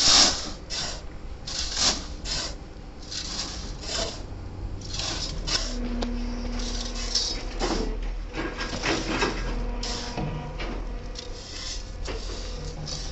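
A steel shovel scraping into a pile of crushed stone and the stone pouring and rattling into a metal wheelbarrow, a scrape or rattle every second or so, over a steady low hum.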